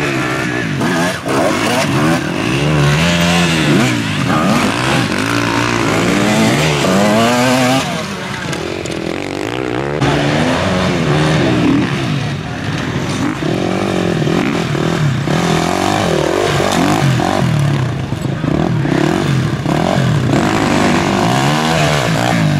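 Off-road enduro motorcycles riding past on a dirt course, their engines revving up and dropping back again and again as the riders accelerate and shift gears.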